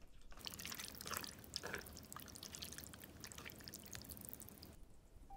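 Faint wet, sticky clicking and dripping as thick udon noodles are stirred and lifted with chopsticks through saucy mala stir-fry; it starts about half a second in and stops near the end.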